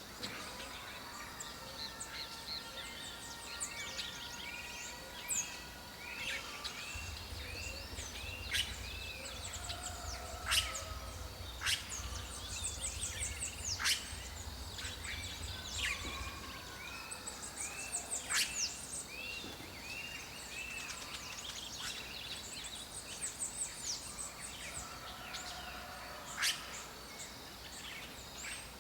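Red-rumped caciques calling in a busy chorus: rows of short, arching notes, quick high falling whistles and several loud, sharp calls that stand out above the rest.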